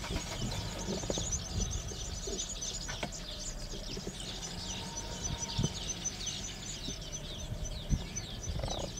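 A chorus of small birds chirping and twittering rapidly and without a break, with a low rumble underneath and a few soft knocks, the loudest near the end.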